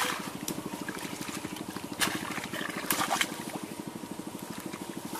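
Feet splashing and wading in shallow muddy pond water, with a few sharp splashes about two and three seconds in, over a steady fast low pulsing in the background.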